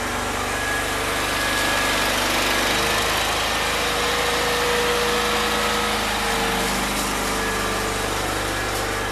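Steady mechanical running noise with a low hum from shop machinery. A faint tone in the hum shifts pitch slightly a couple of times.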